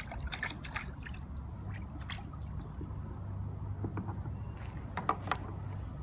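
Small splashes, drips and clinks of water and plastic toys as little hands dabble in a shallow plastic water table, scattered and irregular, loudest about five seconds in, over a low steady hum.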